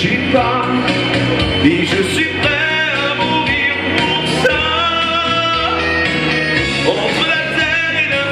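Male voice singing long, wavering notes without clear words over full pop backing music.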